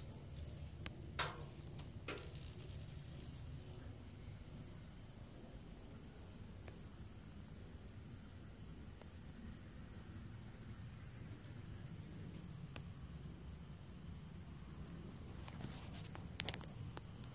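Crickets trilling steadily in one continuous high-pitched tone, with a few sharp knocks about a second in, again a second later, and near the end.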